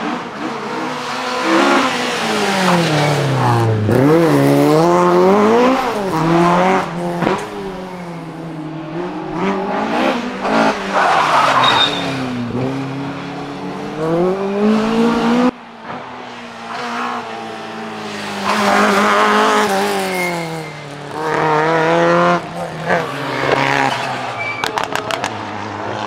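Talbot Avenger rally car's engine revving hard, its pitch climbing and dropping again and again through gear changes and lifts, with some tyre squeal. The sound cuts off abruptly about halfway through and picks up again with another run of revving.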